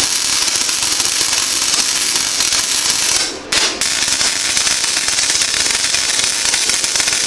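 Flux-core wire-feed welding arc crackling and sizzling on thin 22-gauge sheet steel during a spot-weld attempt. The arc stops for a moment a little over three seconds in, sputters once, then strikes again and keeps crackling.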